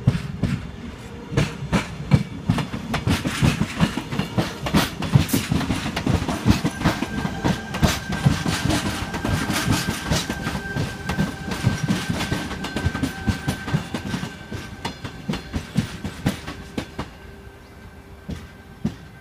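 Four-car Sydney Trains Tangara electric train rolling slowly past over yard track, its wheels clicking and knocking irregularly over rail joints and points, with a steady high whine through the middle of the pass. The sound fades near the end as the train moves away.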